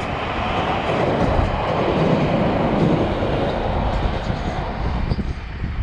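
Passenger train running across a rail bridge, a steady rushing rumble that eases off about five seconds in.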